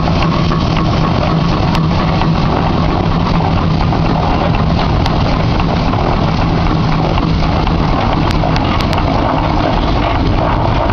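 1908 Peerless Model S steam traction engine running as it drives slowly forward. The noise stays even, with a steady low hum underneath.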